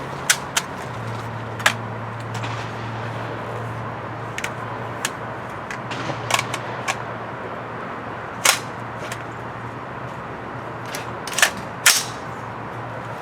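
Gunshots at an outdoor shooting range: about a dozen single shots at irregular intervals and of varying loudness, some faint and some close, with two loud shots in quick succession near the end.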